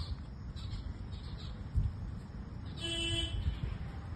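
Wind rumbling and buffeting on the phone microphone, with a single steady pitched tone lasting about half a second around three seconds in.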